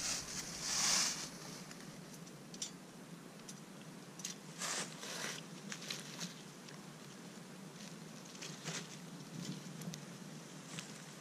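Faint campfire crackle, with scattered small pops and clicks throughout. Two louder brushing rustles, one in the first second and one about five seconds in, from a dog's fur rubbing against the camera.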